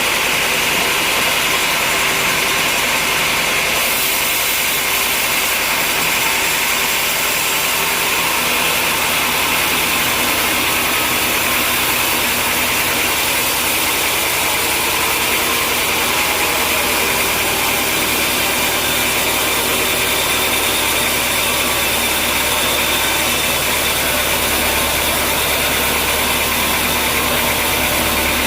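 Sawmill machinery running steadily: a continuous mechanical hum under a hissing band of noise, with a low hum that grows stronger about halfway through.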